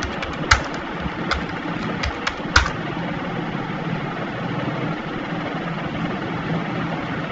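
Computer keyboard keys clicking in a short run of keystrokes as commands are typed, with two louder clicks, over a steady low hum.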